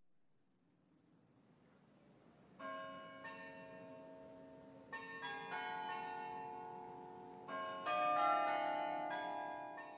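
Near silence for the first couple of seconds, then chiming bell tones in three clusters of struck notes, about two and a half, five and seven and a half seconds in. The notes ring on and overlap, each cluster louder than the one before.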